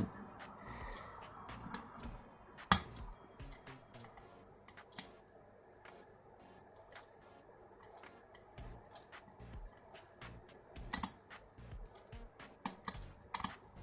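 A lock pick working the pins of a six-pin pin-tumbler lock cylinder under tension, giving scattered sharp metallic clicks as pins are lifted and set, the loudest about three seconds in and a cluster near the end.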